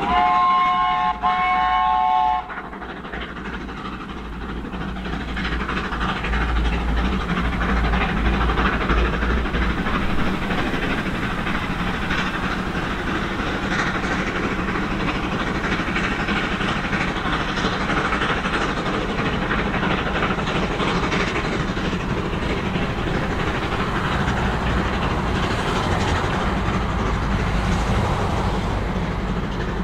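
A Stroudley 'Terrier' 0-6-0 tank steam locomotive sounds its steam whistle, a held chord of about two and a half seconds with a brief break in the middle. After the whistle the engine keeps working hard up a steep gradient, its exhaust and the rolling train making a steady, dense noise.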